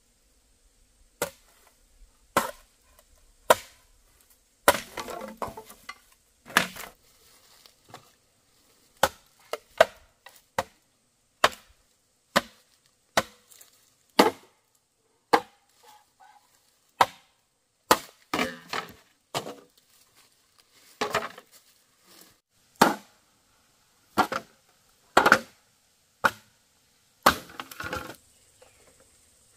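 Wood being chopped by hand with a blade: sharp strikes at an uneven pace of about one a second, a few of them followed by a short splintering crackle.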